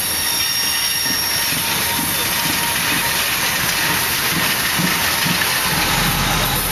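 Loaded coal hopper train rolling past: a steady rumble and hiss of wheels on rail, with a thin wheel squeal from the curve in the first couple of seconds. A deeper low rumble joins near the end.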